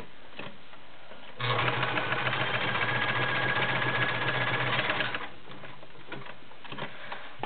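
White model 999 sewing machine stitching through five layers of woven cotton upholstery fabric: it starts about a second and a half in, runs at a steady speed for nearly four seconds, then stops. A few faint clicks follow.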